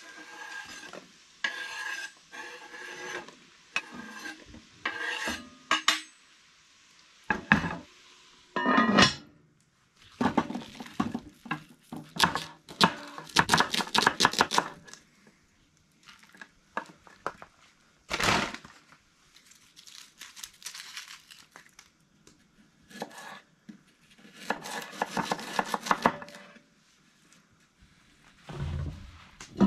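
A kitchen knife chopping Brussels sprouts on a bamboo cutting board, in quick runs of strokes, mixed with the clatter of cast iron cookware and utensils.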